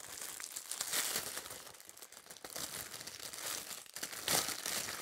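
Packaging crinkling and tearing as a small item is unwrapped by hand, in uneven stretches of rustling with a louder bit near the end.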